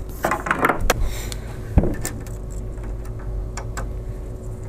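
Small clicks and knocks of a screwdriver and fingers working on screws in a 3D printer's frame, with a cluster of clicks in the first second and one sharper knock about two seconds in, then lighter scattered ticks over a faint steady hum.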